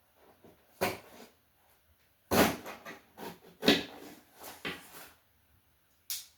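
Handling noises from opening a cardboard shipping package: a series of separate knocks, scrapes and rustles, with the loudest cluster a little past two seconds in.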